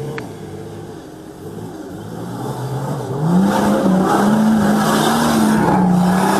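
An off-road 4x4's engine runs at low revs, then revs up about halfway through and is held high, its pitch wavering. It is under load as the vehicle tries to climb a rock step.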